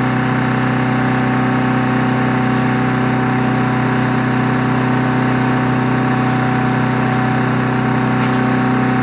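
Small engine of a powered pole saw running at a steady, even speed while held up to a tree limb.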